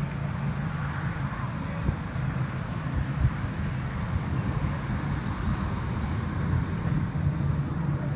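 Steady low engine rumble with a constant low hum.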